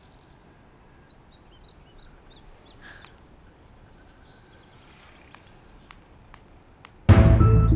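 Quiet outdoor ambience with faint bird chirps and a few faint clicks, then loud background music with deep sustained low notes starts suddenly about seven seconds in.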